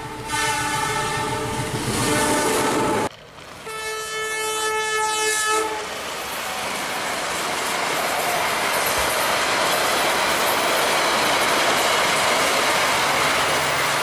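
Toy CC 206 locomotive sounding two electronic horn blasts from its small speaker, the first cut off about three seconds in and the second ending near six seconds. Then the toy train runs along its plastic track with a steady whirring, rattling noise.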